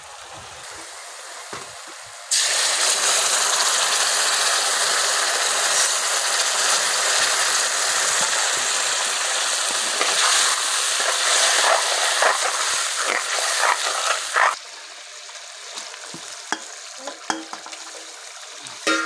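Onions and spice masala frying hard in hot oil in a kadai: a loud, steady sizzle that starts abruptly a couple of seconds in and cuts off abruptly about twelve seconds later. In its second half a metal spatula scrapes and knocks against the pan as the mixture is stirred, and after the sizzle stops only scattered clinks remain.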